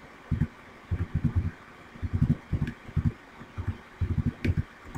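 Typing on a computer keyboard, heard as dull low thumps in quick clusters of a few keystrokes, with a sharper key click about four and a half seconds in.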